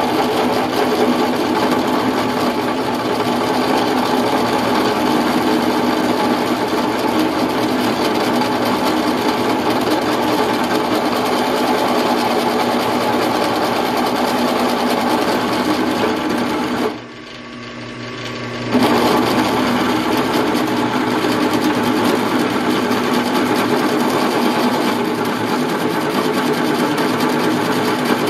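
WEN 4225 drill press running at about 300 RPM while a 5/8 inch high-speed steel bit cuts into hot-rolled steel, chattering steadily as it bites. The cutting noise drops off briefly about two-thirds of the way through, then resumes.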